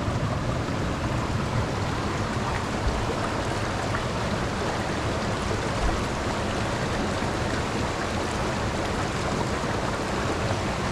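Steady rush of stream water pouring over rocks below a waterfall, an even hiss with no breaks.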